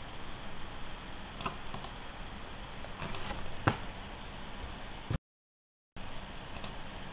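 Scattered sharp clicks of a computer mouse, some in quick pairs, over faint steady hiss, as cells are selected and a right-click menu is used to paste. The sound cuts out completely for under a second a little after five seconds in.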